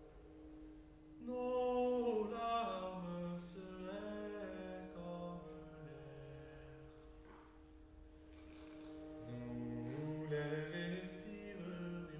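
Slow singing in long held notes that move up and down in steps, over a steady sustained drone tone. The singing comes in about a second in, thins out in the middle and swells again near the end.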